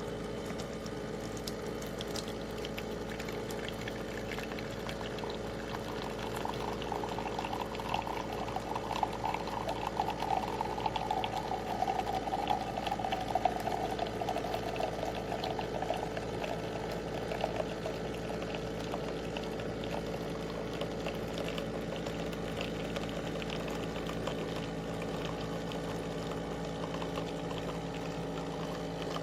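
De'Longhi Rivelia automatic espresso machine running with a steady hum, liquid bubbling and gurgling through it, strongest from about six to eighteen seconds in.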